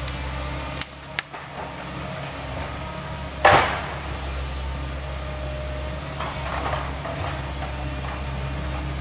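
Volvo 140 excavator's diesel engine running steadily at a distance, with a steady whine over its low hum. About three and a half seconds in comes one loud, sharp crack, and there are a few lighter knocks around one second in.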